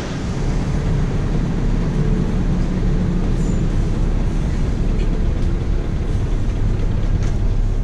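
Shuttle bus engine running steadily, heard from inside the cabin: a constant low hum under an even rumble.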